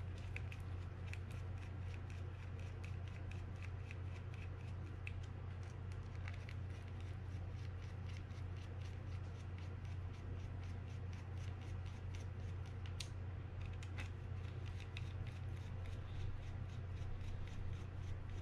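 Small screws being driven into a fishing reel's ring plate with a mini screwdriver: a long run of light, rapid metal ticks and clicks, a couple of sharper clicks near the end, over a steady low hum.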